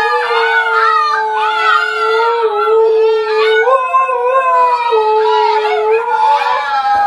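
An adult husky and a litter of husky puppies howling together: one steady lower howl held throughout under several higher, wavering howls.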